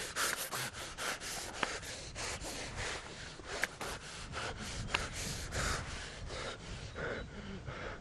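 Hands, arms and clothing scraping and rubbing against a rough concrete pole in quick repeated strokes, about four or five a second, while someone tries to climb it. There are a few sharp clicks among the strokes.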